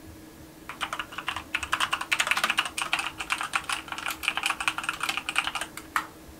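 Fast typing on a computer keyboard: a quick, uneven run of key clicks lasting about five seconds, then a single last keystroke after a short pause.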